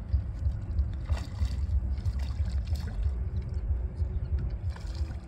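Faint splashing and sloshing of water from a hooked common carp being played near the surface, under an unsteady low rumble.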